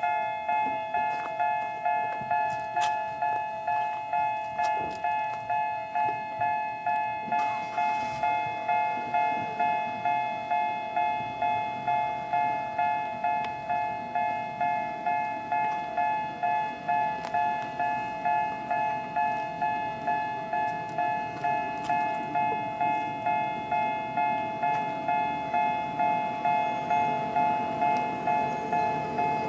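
Japanese railway level-crossing warning bell, an electronic bell of the 'Sangi' tone type, ringing in a steady repeat of about two strokes a second. A train's rumble builds underneath toward the end.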